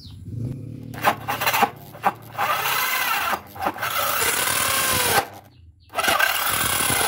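An electric drill spins a Bison hole saw into a board of hard wood, the saw teeth grinding and rasping slowly through it, with the pitch wavering as the drill is rocked. The motor cuts out briefly about five seconds in, then starts cutting again.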